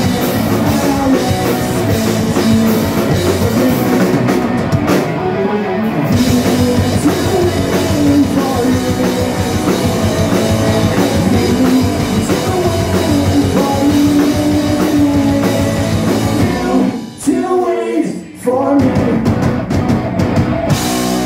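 Rock band playing live: distorted electric guitars, bass guitar and drum kit with a male lead singer. The music drops out briefly twice about 17 to 18 seconds in, then carries on.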